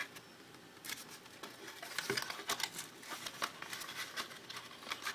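Cardboard processor packaging being worked open by hand: irregular scraping, rustling and small clicks of cardboard being pried and pulled apart.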